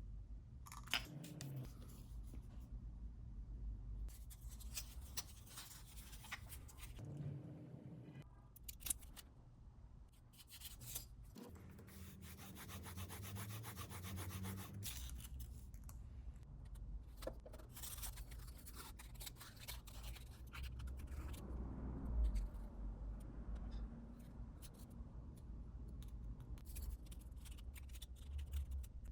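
Hand rubbing and scraping in short irregular strokes with pauses between them, like sanding or rubbing down a workpiece by hand, over a steady low hum.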